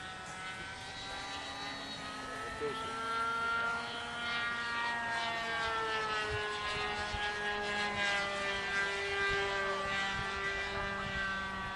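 The NGH 9cc single-cylinder gasoline engine of a radio-controlled model airplane, swinging an 11x7 propeller in flight. Its buzzing note sweeps down and up in pitch several times as the plane manoeuvres overhead, growing a little louder a few seconds in.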